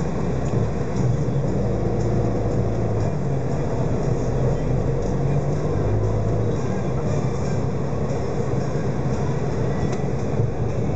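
Dense, slow city traffic: a steady low rumble of motorcycle and car engines close by, with road noise.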